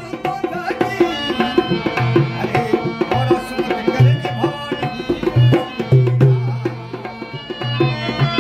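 Rajasthani Manganiyar folk devotional music (bhajan): a hand drum beats a rhythm with deep bass strokes under a steady melodic instrument, in a short instrumental passage between sung lines.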